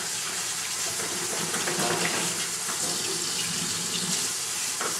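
Beef chunks sizzling steadily in hot oil in a wok as they are laid in to sear.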